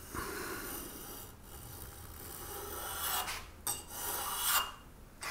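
Small block plane shaving a chamfer on the corner of a wooden vise jaw: a few long scraping cutting strokes with short pauses between them.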